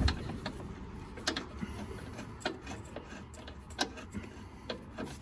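A few faint, irregular metallic clicks and ticks as a suspension bolt is handled and turned by hand, metal tapping against metal.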